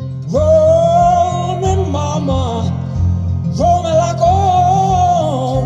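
A song played back over a hi-fi system's stand-mounted speakers and recorded in the listening room. A singer delivers two held phrases over strummed acoustic guitar and bass.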